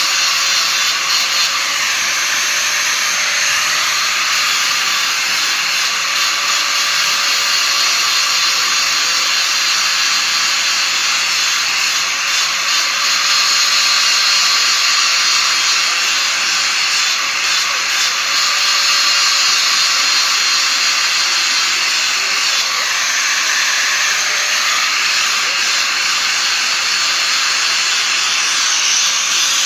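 Electric grinding wheel grinding metal during sharpening: a loud, continuous rasping hiss with a faint steady motor tone under it. The hiss shifts in pitch a couple of times as the pressure on the wheel changes.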